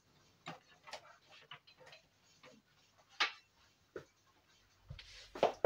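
Scattered light clicks and knocks of hands working inside a desktop PC case, pulling cables and connectors loose, with a sharper knock about three seconds in and the loudest one near the end.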